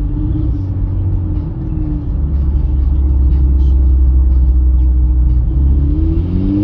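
Car engine running with a misfire that is blamed on a faulty APR ignition coil. It holds a low, steady note, then its pitch rises near the end as the revs pick up.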